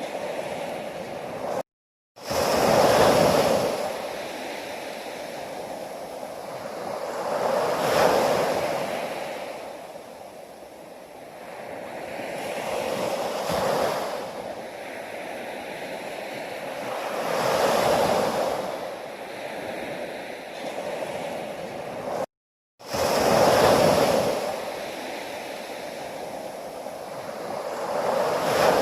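Ocean waves breaking on the shore, each surge swelling and washing back about every five seconds. The sound drops out twice in brief silent gaps.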